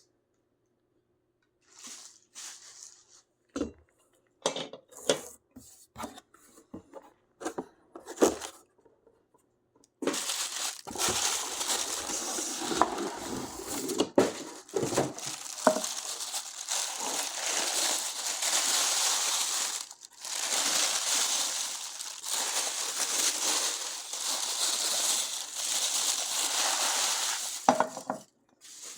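Unboxing a stainless steel sauté pan and glass lid: scattered knocks and clinks of the cookware being handled for about ten seconds, then a long stretch of continuous rustling and crinkling of packaging, with a few brief pauses.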